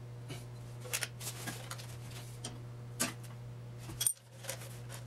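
Small metal clinks and clicks of a wrench being worked on a brake bleeder screw behind a car's front wheel, over a steady low hum.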